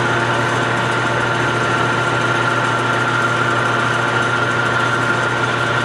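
Metal lathe running steadily at about 320 rpm, with a twist drill fed from the tailstock drilling into hot-rolled steel stock: a continuous machine hum with a steady whine over it.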